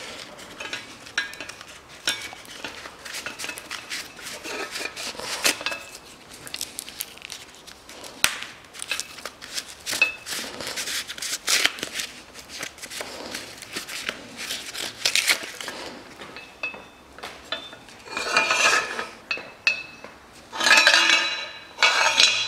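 Steel exhaust front pipe for a Land Rover Series III knocking and clinking against the engine's cast exhaust manifold as it is offered up, a string of light metallic clicks. Two longer, louder metal scrapes come near the end.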